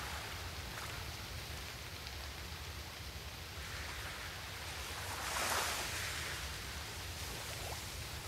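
Steady hiss over a low hum, swelling briefly about five seconds in.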